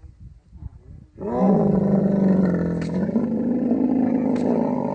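Camel in the mating season bellowing: one long, loud, low call that starts about a second in.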